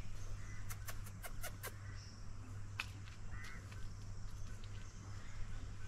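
Outdoor ambience under a steady low hum: a quick run of sharp clicks about a second in, then a couple of short bird chirps.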